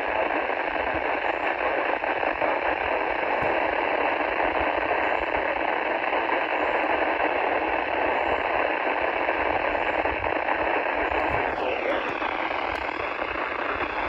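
Eton American Red Cross weather radio's speaker hissing with steady static. About twelve seconds in, a falling whistle sweeps down, followed by faint steady tones.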